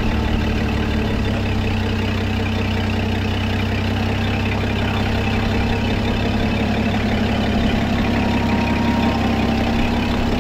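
Diesel-type engine of a rough-terrain forklift running steadily at idle, a constant low hum.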